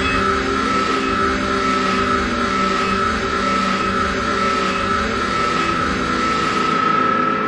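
Dark ambient soundtrack drone: a loud, steady, dense hum with a held high tone over low sustained tones, with no beat.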